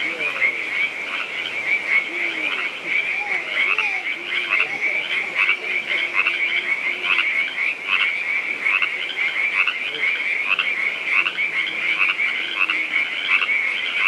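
Dense chorus of frogs calling: a continuous high-pitched chorus with a steady pulsing rhythm, with fainter lower calls rising and falling underneath.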